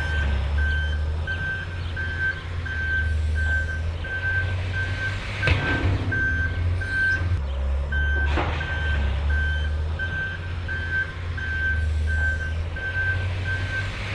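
Reversing alarm on heavy machinery, beeping steadily at about one and a half beeps a second over the machine's low engine drone, with a couple of clanks along the way.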